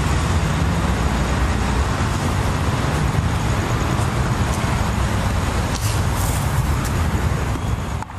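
City traffic noise: a steady rumble of vehicles, with no music, dropping away at the very end.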